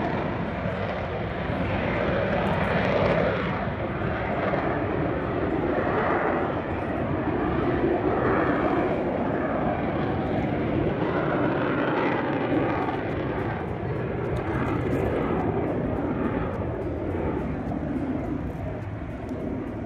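Engine noise of a display aircraft flying overhead: a continuous loud rumble that swells and eases a little.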